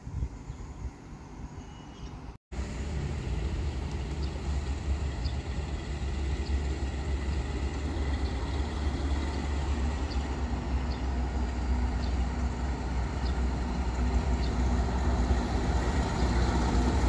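Diesel locomotive hauling a freight train, approaching: a low rumble starts after a short break about two seconds in and grows steadily louder, with an engine hum coming in near the end.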